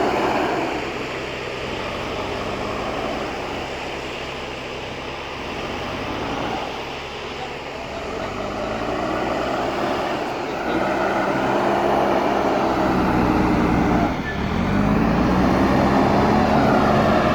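Diesel engine of a JCB backhoe loader running and revving as the machine works, its pitch rising and falling; it grows louder from about ten seconds in.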